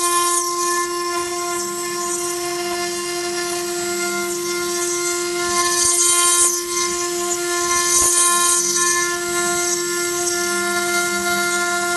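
CNC router spindle carving stone, running with a steady high whine, and a hiss of the bit cutting that swells about halfway through and again about eight seconds in.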